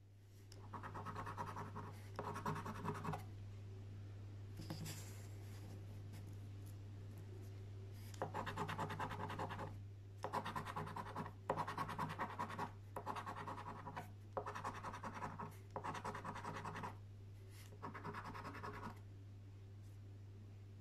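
A coin scraping the scratch-off coating off a paper scratchcard, in about ten short bursts of quick back-and-forth scratching with brief pauses between them.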